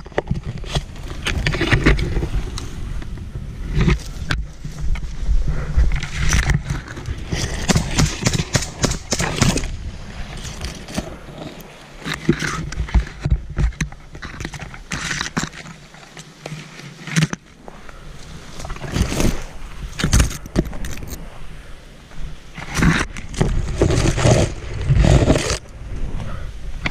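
Handling noise from a camera carried by someone running through dense forest undergrowth: irregular rustling and scraping as leaves and branches brush past, with knocks and footfalls jolting the microphone. It eases off briefly about halfway through.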